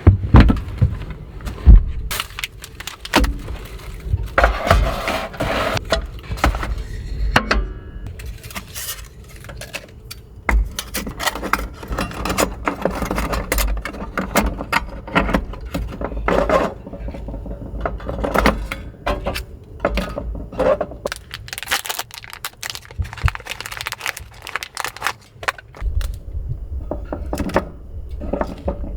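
Objects being handled and set down: irregular clicks, knocks, clinks and scrapes over a continuous low rumble.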